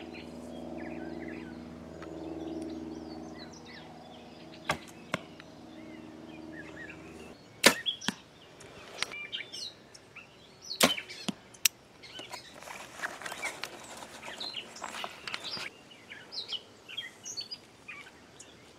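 Traditional recurve bows shooting at foam 3D targets: several sharp knocks of bowstrings releasing and arrows striking, the loudest about eight and eleven seconds in. A steady low hum runs under the first seven seconds and then stops.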